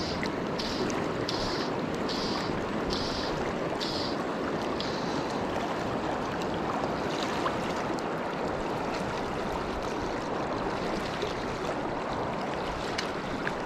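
Steady rush of fast, shallow river water over stones. For the first few seconds a short high hiss repeats about every two-thirds of a second, then fades away.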